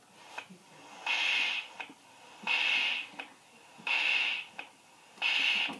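Electronic keyboard sounding a rhythmic percussion pattern: four evenly spaced bursts of rushing noise, about one every one and a half seconds, with small clicks between.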